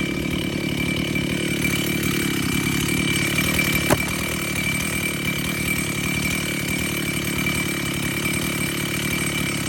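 Two-stroke chainsaw engine running at a steady speed, with one sharp click about four seconds in.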